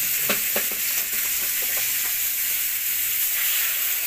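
Beef pieces sizzling in a steel wok over a gas flame, with a few light knocks in the first second. Near the end, water is poured into the hot wok and the hiss grows stronger as it steams, to simmer the meat until tender.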